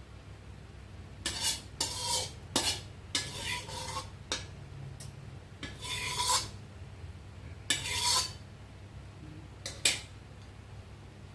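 Metal spatula scraping and stirring bean sprouts in a pan: about eight short, irregular scrapes.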